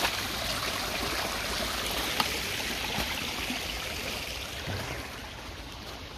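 Water from the pond filter's outflow running and splashing down a small stone waterfall into a pond, a steady rushing that grows fainter in the last second or two.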